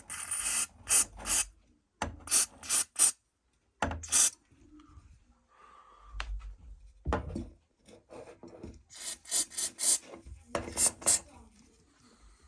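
Cabinet door hinges creaking and rasping in a dozen or so short strokes as the door is worked open and shut. The squeak is partly quieted by a spray-on anti-rust lubricant but not yet gone.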